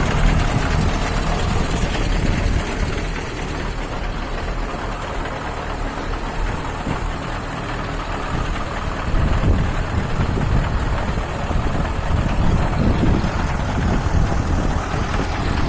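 KamAZ 5320 V8 diesel engine running steadily on its first run after a rebuild. The knock from a scored piston and cylinder liner has been cured.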